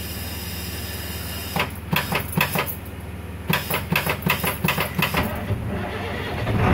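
1988 Blue Bird school bus engine cranking on a cold start, with a run of sharp knocks, then catching and beginning to run about five seconds in. The starter is reluctant to turn it over, which the owner puts down to water in the starter.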